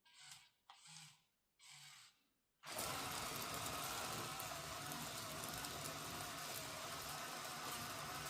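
Small electric motors of a 1:50 scale RC excavator, running in three short bursts of about half a second each, then starting up and running steadily from a little under three seconds in.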